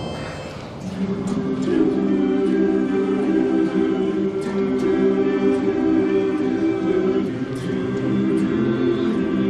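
Men's barbershop chorus singing a cappella in close harmony, coming in about a second in with long held chords.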